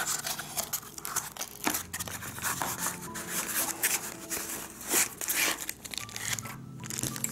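A cardboard box being opened by hand, its flaps rubbed and pulled open, with plastic wrapping crinkling as the contents are slid out. The sound comes in irregular scrapes and rustles, loudest about five seconds in.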